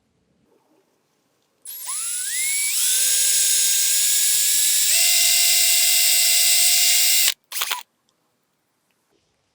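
Electric drill spinning up with a rising whine and running steadily at high speed while drilling out a broken bolt in a two-stroke outboard engine block. The pitch steps up slightly partway through, the drill stops suddenly, then gives one short blip.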